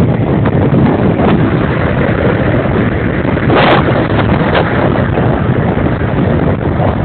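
Wind buffeting the microphone of a moving vehicle, a loud steady rush with the vehicle's drone underneath, and a stronger gust about three and a half seconds in.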